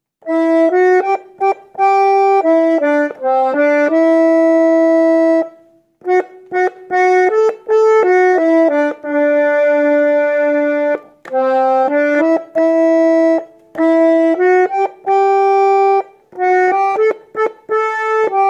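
Garmon (button accordion) playing the song's verse melody on the right-hand buttons, note by note in phrases with short breaks between them.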